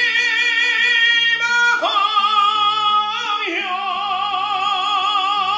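A man singing in full voice, holding long notes with vibrato over backing music with a repeating low accompaniment; his voice steps up in pitch about two seconds in and again around three seconds in, the last note held with wide vibrato until it cuts off at the very end.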